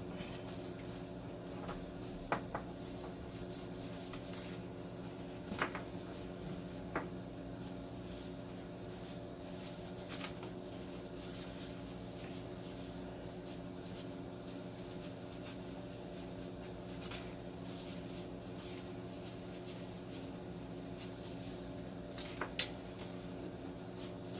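A cable being wiped down with a cleaning wipe to remove sticky residue: faint rubbing with a handful of short clicks and knocks as the cable is handled, over a steady hum.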